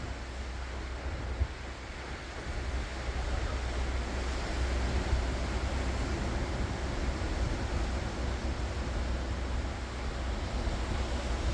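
Ocean surf: waves breaking and washing ashore in a steady rush of noise with a low rumble, growing louder a couple of seconds in. A single brief knock about a second and a half in.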